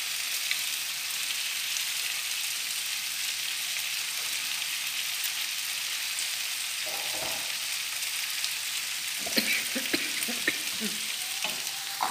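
Chicken and vegetables (onion, capsicum, carrot) sizzling steadily in a frying pan on a gas stove, with boiled spaghetti just tipped in on top. A few light knocks and clatters come in the last few seconds.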